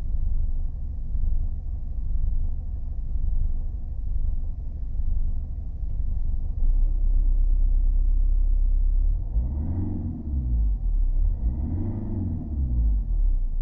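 Mercedes 220 CDI four-cylinder common-rail diesel idling with a steady low rumble, revved briefly twice near the end. The owner reports that it idles rough intermittently, with no cause found.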